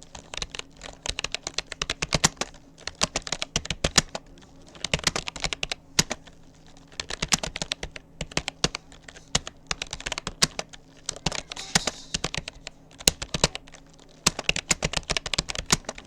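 Typing on a Rapoo computer keyboard: fast runs of key clicks in bursts of a few seconds, with short pauses between words and phrases.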